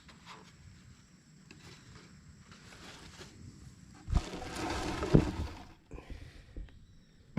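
Handling noise while a bait hive is being set up: faint scattered clicks, then about a second and a half of rustling and scraping, with two thumps about a second apart.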